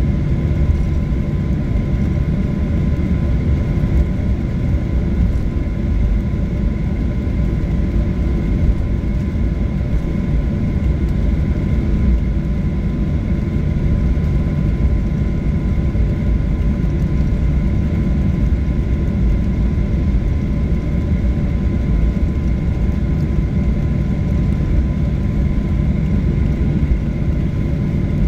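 Jet airliner engines heard from inside the passenger cabin: a steady, loud low rumble with a constant whine above it.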